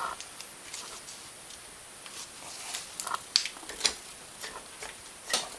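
A few faint clicks and light taps, mostly in the second half, as gloved hands rock a Honda Foreman 500's cylinder head to break it loose from its dowels.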